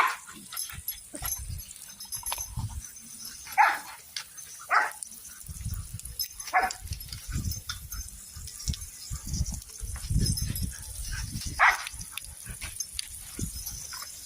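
Belgian Malinois barking: about five short, separate barks spaced irregularly, a second or several apart, with low rumbling noise between them.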